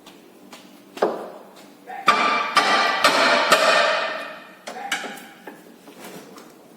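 Hammer blows on steel suspension parts to knock loose a ball joint seized by salt-air corrosion. One sharp blow comes about a second in, then several blows in quick succession that leave the metal ringing, and another blow near the end.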